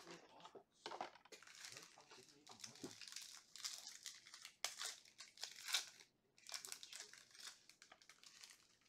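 Foil trading-card packs crinkling as they are handled, with one pack peeled and torn open. The sound comes in irregular crackly bursts, loudest about halfway through.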